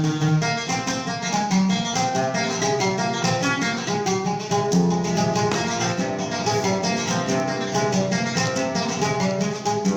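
Instrumental passage of a Yemeni song, led by a plucked string instrument playing quick runs of notes, with no singing.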